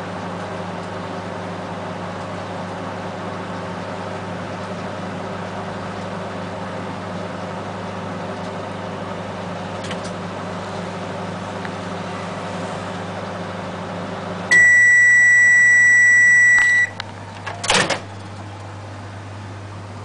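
Sauter Deluxe 850 microwave oven running with a steady hum, which stops about two-thirds of the way through as the oven gives one long, loud beep at the end of its cycle. A few seconds later there is a sharp clack as the door is opened.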